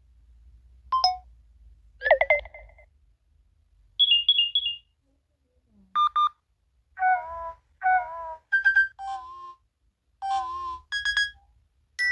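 A run of short electronic phone low-battery alert tones, one after another with brief silences between: a short beep, a rising glide, a quick triple beep, then several small chime and beep figures.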